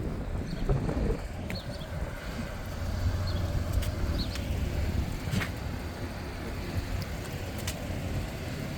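Wind buffeting the microphone in a steady low rumble. A few faint short chirps and light clicks sound above it.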